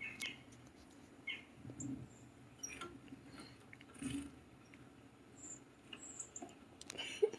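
Sparse, faint bird chirps and short tweets from a bird video playing on a television.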